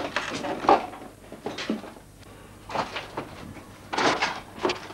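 Irregular knocks, scrapes and crunches of rubble and broken wood being disturbed, with a louder cluster about four seconds in.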